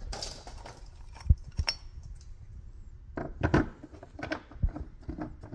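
A few sharp metallic clinks and knocks, scattered and irregular, as a metal access cover and its bolts are handled and set back in place.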